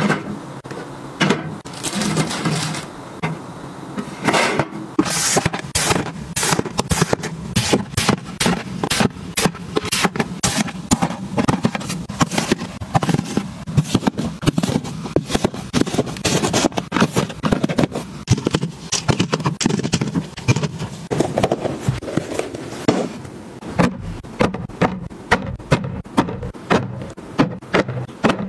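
Plastic and cardboard storage items and packaging being handled and set in place: a busy run of clicks, taps and light knocks, with a few short stretches of rustling and scraping.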